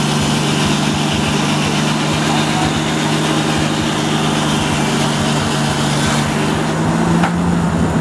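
Old-time sawmill running: a steady mechanical drone from the saw and its drive machinery, with a high hiss of sawing and sawdust blowing that eases off about six seconds in.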